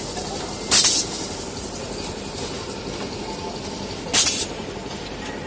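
Two short hisses from a machine, about three and a half seconds apart, over a steady background din.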